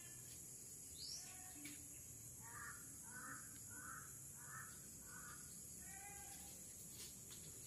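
Faint bird calls: a run of five calls in a row, about two-thirds of a second apart, with single calls before and after, and a short rising whistle about a second in. Steady high hiss throughout.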